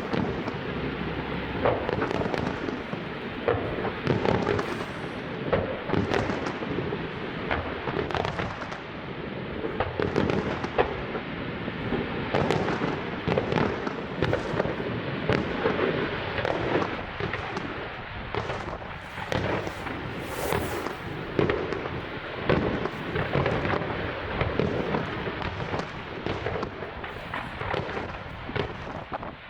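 Fireworks display: a dense, continuous barrage of bangs and crackling bursts, several a second, over a steady rumble.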